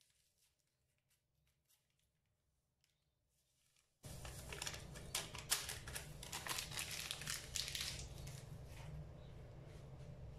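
Near silence for about four seconds, then a small paper sachet of vanilla sugar crinkling and tearing as it is opened and handled, over a low steady room hum.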